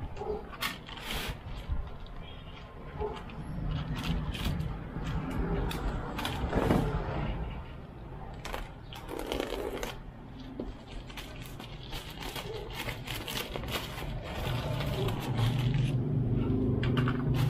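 Plastic courier mailer bag rustling and crinkling as it is handled and slit open with a utility knife. Near the end a low steady hum comes in and grows louder.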